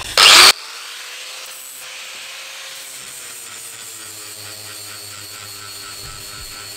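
Angle grinder with a 36-grit flap disc grinding a steel pin, cleaning off weld burrs. A short, very loud burst about a quarter of a second in, then a steady grinding run with a thin motor whine.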